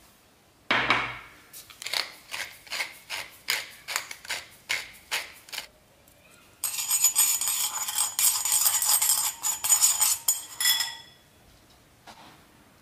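Salt and pepper seasoning being dispensed into a ceramic bowl: a knock, then about fourteen quick, evenly spaced shakes or grinder twists, then about four seconds of continuous grinding with a faint whine that stops suddenly.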